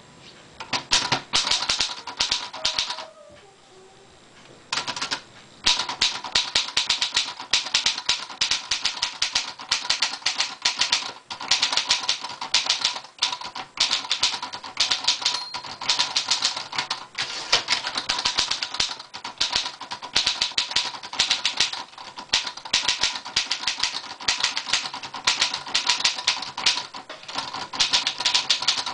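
Speedriter Chevron portable manual typewriter being typed on quickly, keys striking in rapid runs. A short burst of typing stops about three seconds in, then a steady run of typing resumes about two seconds later and carries on.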